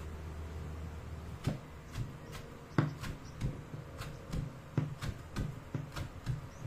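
Kitchen knife chopping moringa (malunggay) leaves on a wooden cutting board: a quick run of knocks, about three a second, starting about a second and a half in. Before that, a steady low hum that cuts off.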